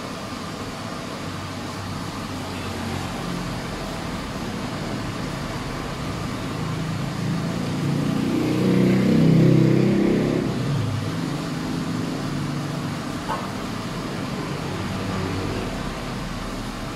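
Steady road-traffic noise with a vehicle passing by, swelling to its loudest about nine seconds in and then fading.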